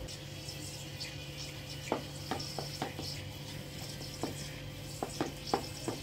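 Bread dough being kneaded by hand in a large aluminium pot: irregular short knocks and slaps as the dough is pressed and turned against the pot, coming in little clusters of two to four, over a steady faint hum.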